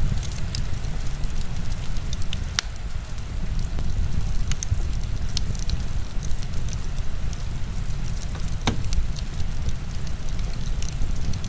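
Heavy rain as a steady low rush, with a wood fire crackling over it in sharp scattered pops. Two pops stand out, one about a quarter of the way in and one about three-quarters through.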